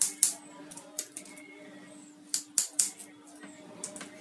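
Small wire cutters snipping through the thin copper wires of a Cat5 cable: a series of sharp clicks, two right at the start, a cluster of three about two and a half seconds in, and one more near the end, over a steady low hum.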